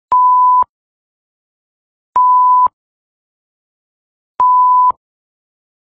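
Electronic countdown beeps: three identical steady beeps at one pitch, each about half a second long and about two seconds apart, with a faint click as each starts and stops.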